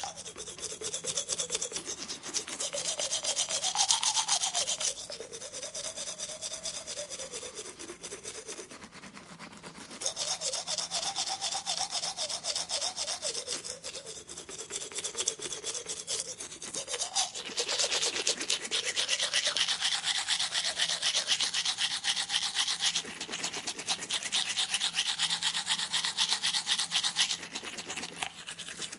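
A powered tooth-cleaning tool scrubbing against teeth: a fast, rasping brushing sound with a faint motor buzz whose pitch wavers up and down. It eases off for about a second around the middle and picks up again.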